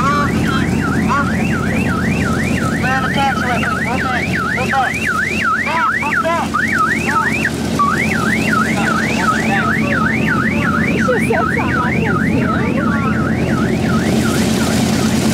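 Electronic alarm wailing up and down in rapid, even sweeps, about three a second, over a steady low engine drone.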